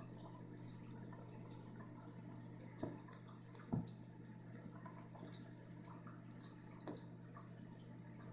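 Soft thumps and rustles of a Savannah cat wrestling a fabric catnip kicker toy on carpet, two of them about three seconds in and a smaller one near the end, over a steady low room hum.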